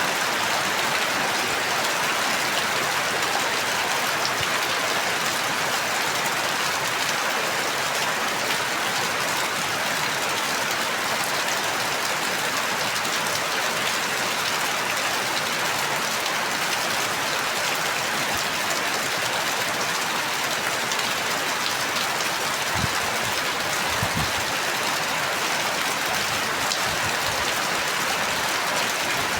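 Steady rain falling, an even hiss of many drops with no letup, with a couple of soft low thuds a little after two-thirds of the way through.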